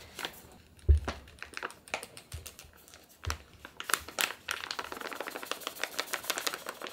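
Paper flour bag crinkling and rustling as it is handled, with dull thumps about a second in and again past three seconds. Then a fast, dense crackle of paper as the bag is tipped and soft flour pours into a glass measuring cup.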